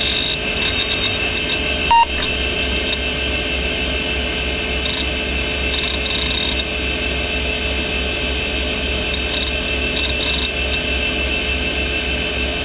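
Vintage 486 desktop PC booting: the steady whir and hum of its cooling fans and spinning hard drive, with one short single beep from the PC speaker about two seconds in, the BIOS POST beep as the power-on self-test completes.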